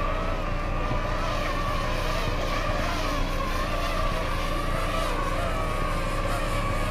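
DJI FPV drone's motors and propellers whining steadily, the pitch wavering slightly.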